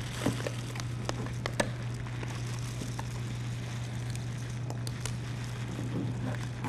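Scattered light clicks and rustles of dry rice being scooped out of a plastic bag, over a steady low hum.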